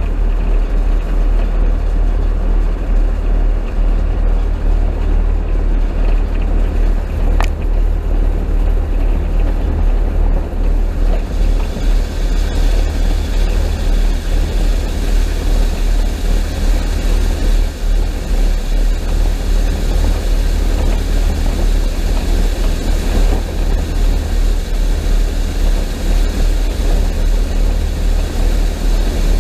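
Combine harvester running steadily while harvesting corn: a loud, even mechanical rumble with no change in pace.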